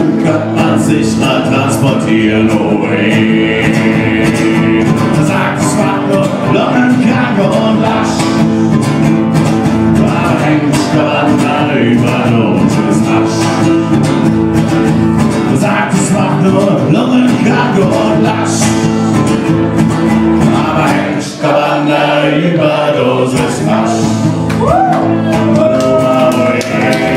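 Acoustic guitar strummed steadily, with a man singing along in a live solo performance.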